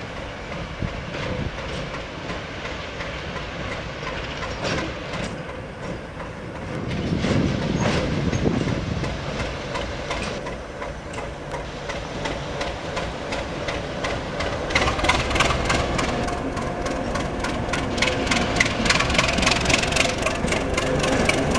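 ChME3 shunting diesel locomotive moving slowly past, its six-cylinder diesel engine running and its wheels clattering over rail joints and points. It grows louder as it nears, with rapid clicking in the last several seconds.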